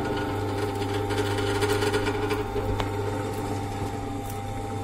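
Electric motor turning a cutaway three-cylinder petrol engine model, a steady machine hum with faint ticks from the moving pistons and valve gear.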